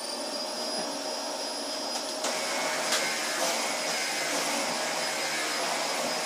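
Dyson DC24 upright vacuum cleaner running steadily at full speed just after being switched on, a high motor whine over the rush of air, with a few sharp ticks about two and three seconds in.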